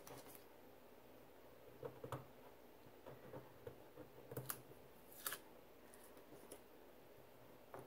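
Faint, scattered small clicks and crackles of Post-it adhesive tape being peeled off a plastic stencil and cardstock, a few separate ticks spread over several seconds.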